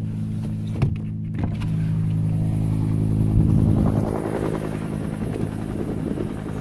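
Helicopter hovering and climbing with an airplane slung beneath it, its rotor and engine making a steady low drone that swells for a couple of seconds near the middle and then eases off. A couple of brief knocks about a second in.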